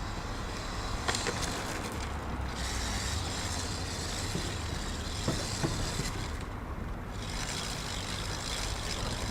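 Radio-controlled cars running on tarmac, a steady noisy whir of motors and tyres that swells and fades as they pass, with a few short knocks.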